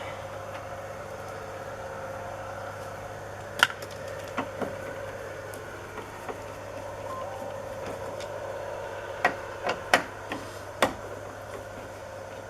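Scattered sharp clicks and knocks of hand tools and small parts being handled, one loud one about three and a half seconds in and a cluster near the end, over a steady hum.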